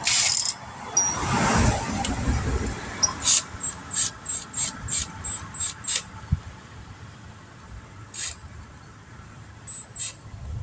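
Tire-repair hand work: a knock at the start, then a run of short, sharp, high squeaks or clicks, about three a second, for a few seconds, with a few more near the end.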